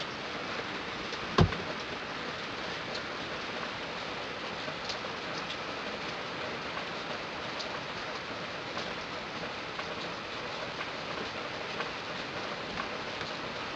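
Steady rain-like hiss with scattered faint ticks, and one sharp knock about a second and a half in.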